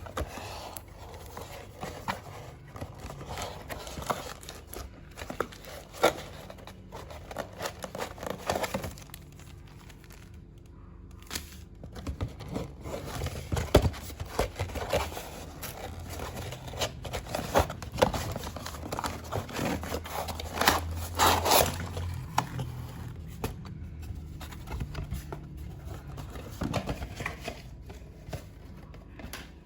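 Toy packaging being handled and opened by hand: irregular rustling of plastic and cardboard with scattered clicks and scrapes, busiest in the middle.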